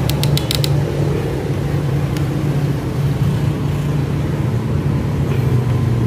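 Steady low mechanical hum of workshop machinery. A quick run of sharp metal clicks comes in the first second, with one more click about two seconds in, as tools are handled on the bare engine head.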